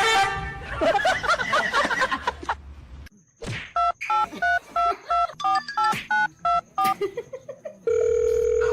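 Touch-tone telephone keypad beeps: about a dozen quick dual-tone presses, followed near the end by a steady tone. Before them, a wavering cry or voice sounds for the first couple of seconds.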